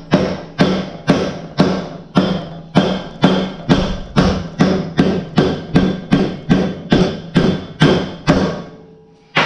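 Steel hammer blows on a ride-on mower deck's spindle shaft, about two strikes a second, each with a short metallic ring, knocking the shaft out of its bearing housing. The blows stop near the end.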